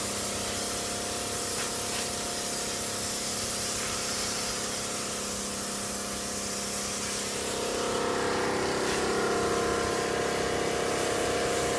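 A high-pressure cold-water washer spraying from its gun with a steady hiss, over the steady hum of its 48-volt pump run at full pressure. About two-thirds of the way through, the spray grows fuller and a little louder.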